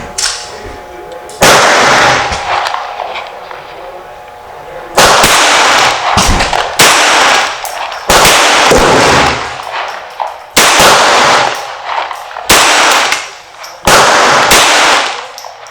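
Seven pistol shots from a Colt Service Ace .22 (a .22 rimfire 1911 with a floating chamber) firing CCI Mini Mag hollow points. The shots are spaced one to three and a half seconds apart, and each has an echoing tail of about a second.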